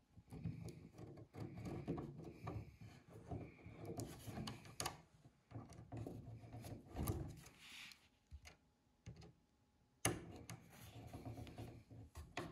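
Small screw being driven by hand with a screwdriver into the plywood servo mount, a faint irregular scraping and creaking with light clicks and hand-handling noise. About eight seconds in it goes nearly silent for a moment, then a sharp click.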